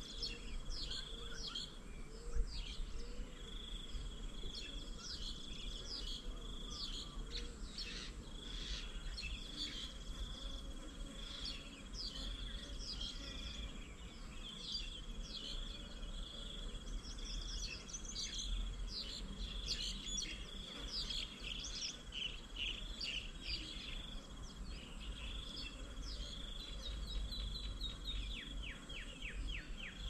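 Small birds chirping over and over, with an insect's high, steady trill that runs for a few seconds at a time with short breaks, over a low background rumble. Near the end comes a quick run of chirps.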